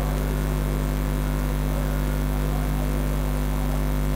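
Steady electrical mains hum from a microphone and public-address system: a constant low buzz with no other sound.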